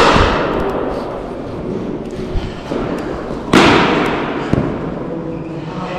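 Two loud cricket bat strikes on the ball, one right at the start and one about three and a half seconds later, each ringing out in a long echo that fades over about a second. A smaller knock follows soon after the second strike.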